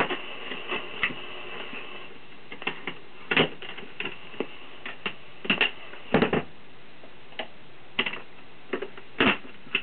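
Irregular clicks and a few louder knocks from a Zenith Trans-Oceanic 3000-1 shortwave radio being handled, its knobs and switches worked, over a steady hiss.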